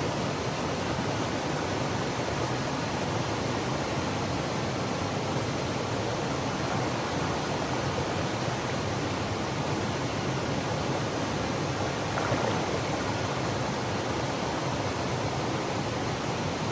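Waterfall water rushing steadily as an even hiss, with one slightly louder moment about twelve seconds in.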